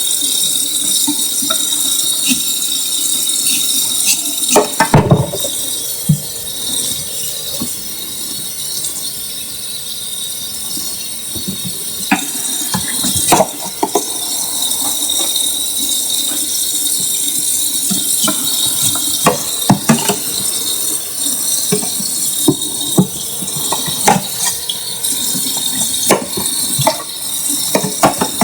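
Kitchen work: pots, utensils and dishes clinking and knocking many times over a steady hiss.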